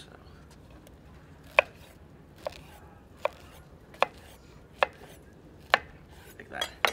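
Kitchen knife chopping pineapple into big chunks, each cut ending in a knock on a wooden cutting board. There are six evenly spaced chops, then a quicker few near the end.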